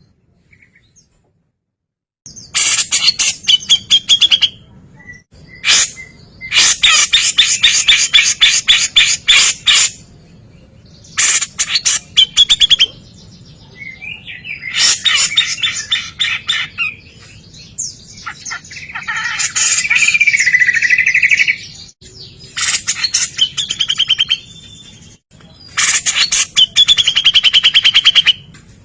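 Grey-cheeked bulbul (cucak jenggot) song: loud bursts of very rapid, densely repeated notes ('tembakan rapat'), each lasting a second or three with short pauses between. It starts after about two seconds of silence.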